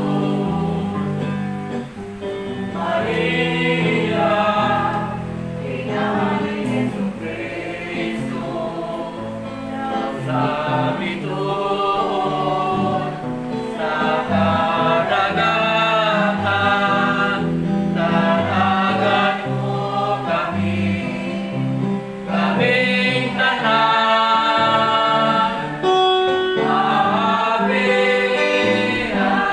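A group of people singing a worship song together over instrumental accompaniment.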